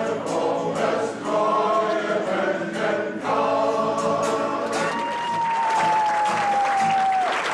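A male choir singing a German song, ending on a long held high note that sags slightly in pitch. Applause breaks out just as the note ends.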